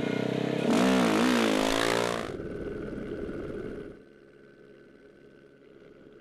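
Rally motorcycle engine revving hard, loudest from about one to two seconds in, its pitch rising and falling with the throttle. After about four seconds it drops to a much quieter, steady engine drone.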